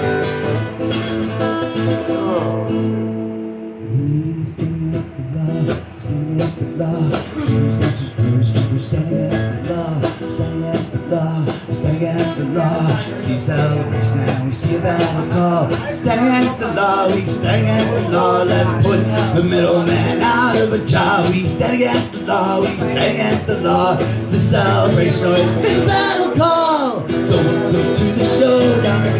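Live band playing a cover song: guitar with a singing voice over it. The low end fills out about four seconds in.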